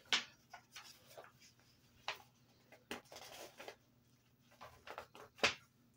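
Pages of a paperback picture book being opened and turned by hand: a few quiet, short paper rustles and taps, with a slightly longer rustle about three seconds in.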